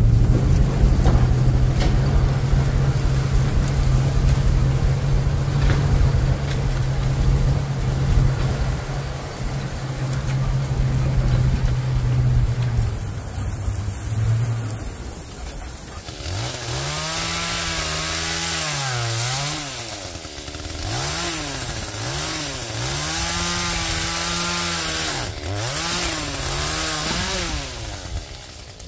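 Pickup truck engine droning steadily while driving a rough woodland track, then, about halfway through, a two-stroke chainsaw revving and bogging down again and again as it cuts through branches.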